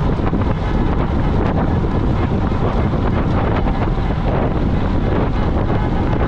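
Heavy, steady wind rush over the microphone of a camera mounted on a moving bicycle, with nothing standing out above it.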